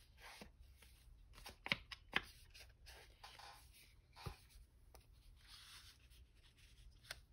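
Quiet paper-crafting handling: paper rubbing and rustling twice, broken by a few small sharp taps.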